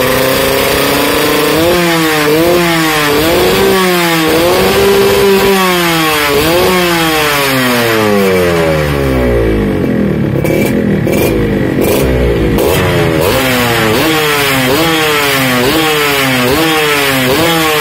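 Yamaha RX-King's single-cylinder two-stroke engine running through an aftermarket Thai-style racing exhaust, revved up and down in quick repeated blips. Around the middle the revs fall away lower for a few seconds, then the quick blipping starts again.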